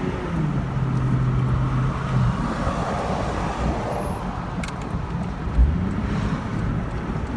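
Car engine and road noise heard from inside the moving car, the engine hum dropping in pitch about half a second in, then holding steady. A single low thump comes a little over five seconds in.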